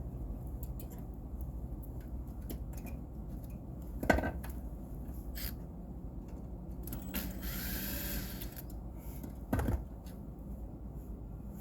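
Hand-tool work on an air-conditioner outdoor unit: scattered small clicks and knocks over a low rumble, with two louder knocks, one about four seconds in and one near the end. A short whir that bends in pitch comes about two-thirds of the way through.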